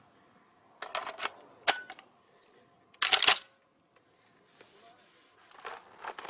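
Metallic clicks and clacks of a Balıklı Makarov S20 20-gauge magazine-fed shotgun being handled and readied to fire. A few sharp clicks come first, then a louder, brief cluster of clacks about three seconds in as the action is worked.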